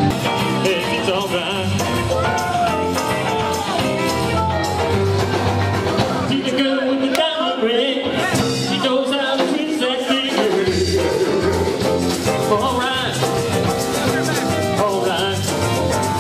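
Music with singing and instruments, guitar among them; the bass drops out for a few seconds in the middle.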